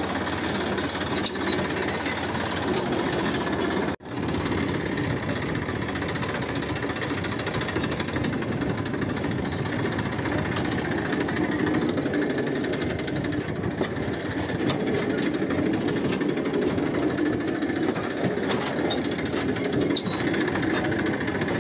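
Massey Ferguson tractor's diesel engine running steadily while the tractor is driven, with a dense, even mechanical clatter. It cuts out for an instant about four seconds in.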